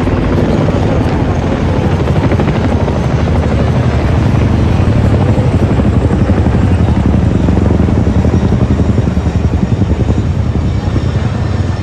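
Formation of military helicopters, including tandem-rotor CH-47 Chinooks, flying low overhead: a loud, continuous rapid beating of rotor blades that swells in the middle and eases off near the end as they pass.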